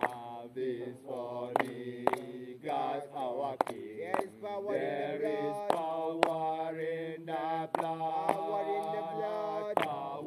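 Voices chanting a slow hymn with long held notes, over sharp beats that come in pairs about every two seconds.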